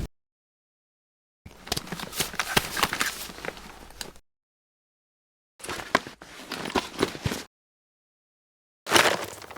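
Clone trooper foley sound effects: three short clips of clattering clicks and knocks, each one cut off into dead silence.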